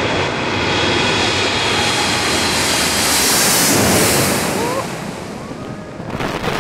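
Jet airliner passing low overhead on its approach to land, the engine roar swelling to a peak about three to four seconds in and then fading.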